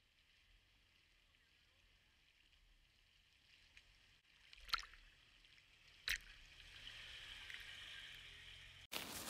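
Water sloshing and splashing as a Jeep Wrangler's tyres push through a shallow puddle and over the camera. It is faint at first, then two sharp knocks come about halfway through, followed by a steady splashing hiss.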